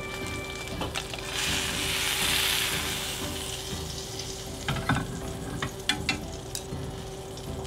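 Hot seared beef steak sizzling, the hiss swelling loudest about two seconds in and then easing, with a few light clicks of chopsticks on a ceramic plate as the steak is set down to rest.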